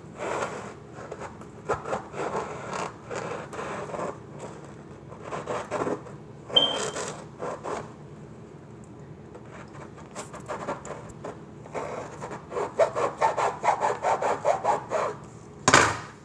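A blade sawing back and forth through a football's tough casing in rasping strokes, in irregular bursts, then a quicker run of about three strokes a second late on, ending with one loud stroke.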